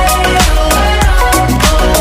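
Background music: a song with a steady drum beat and a deep bass line.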